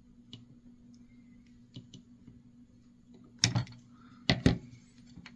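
Hand wire strippers and thin hookup wires being worked: a few light clicks, then several sharper clicks in the second half as the insulation is stripped and the tool is handled.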